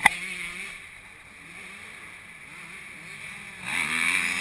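Motocross dirt bike engines revving up and down as riders go round the track, faint at first and getting louder about three and a half seconds in as bikes approach. A sharp click right at the start.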